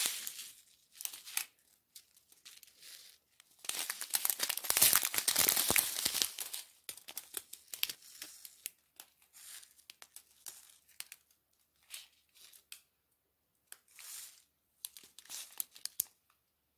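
Small clear plastic bags of diamond-painting drills crinkling as they are handled. The crinkling comes in bursts, loudest for about three seconds near a quarter of the way in, then in scattered faint crackles.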